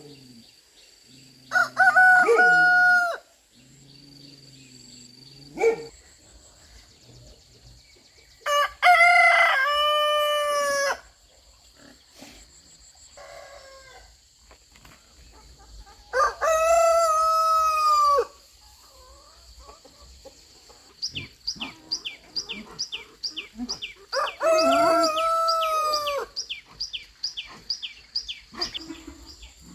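Roosters crowing: four long crows a few seconds apart, each lasting about two seconds. Through the last third, a quick run of short high chirps, about three a second, sounds alongside them.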